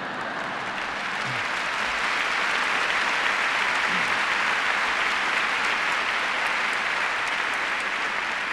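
Lecture-hall audience applauding, the clapping swelling over the first couple of seconds and then holding steady.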